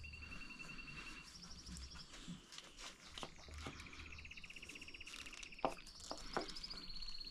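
Songbirds trilling: several long, even trills of rapidly repeated notes at two pitches, one higher and one lower, overlapping one another. About two-thirds of the way through, two sharp clicks from parts being handled stand out as the loudest sounds.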